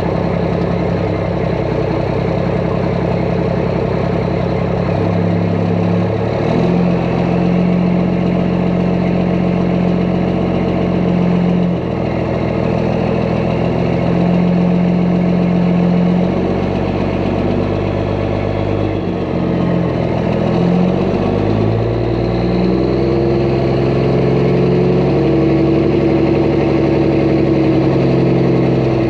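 Truck engine running, its pitch stepping up and down several times and climbing steadily near the end.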